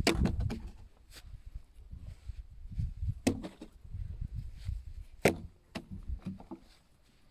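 Two puppies play-fighting: scuffling with several sharp clicks, the loudest about five seconds in, over a low rumble. The scuffle quietens near the end.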